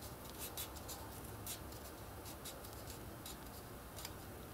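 A narrow strip of card being curled and rolled between the fingers: faint rustling with many small scattered crackles and ticks as it flexes.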